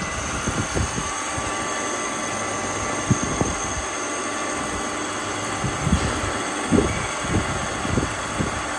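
CNC lathe running its program: a steady mechanical hum and whine as the spindle turns and the tool feeds along the Z axis. A few short low thuds come through at irregular moments in the second half.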